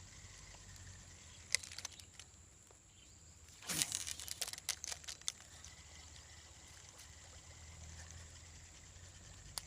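Water splashing lightly over a faint trickle, with a sharp click about a second and a half in and a brief flurry of splashes around four to five seconds in.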